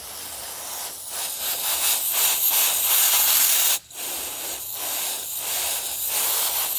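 Canned air duster spraying in a long, steady hiss. It cuts out briefly just before four seconds in, then sprays again.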